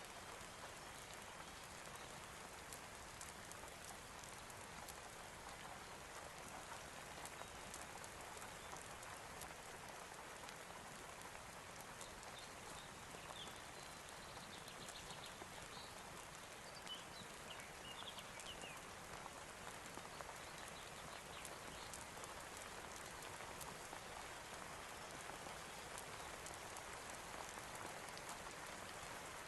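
Soft, steady rain falling, with scattered sharp drop ticks.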